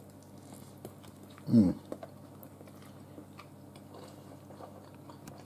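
A person chewing a pulled BBQ chicken sandwich, with faint small mouth clicks. About a second and a half in comes one short voiced sound of enjoyment that falls in pitch.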